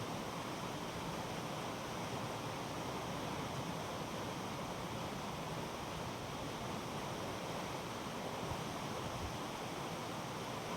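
Steady rush of water, even and unbroken.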